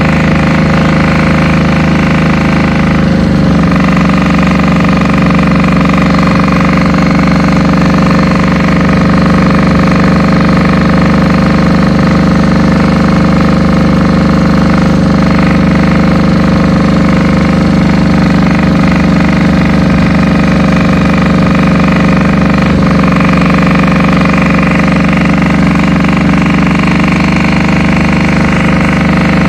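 Two-stroke diesel engine of a 1965 Agrostroj Prostějov T4-K10-A articulated tractor running steadily while the tractor drives along, its note shifting about three seconds in.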